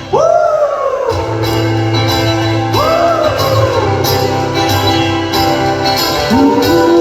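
Live band playing an instrumental passage of an indie-folk song: a steady beat with tambourine-like jingles about twice a second over a full bass line, and a melodic note that swoops up and falls away three times.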